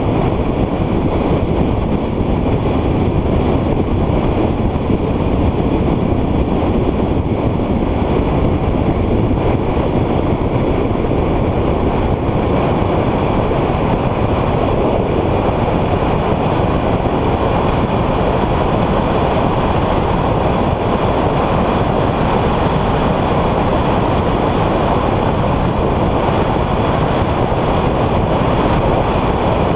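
A car running at speed, a steady mix of engine, tyre and wind noise with no marked rise or fall.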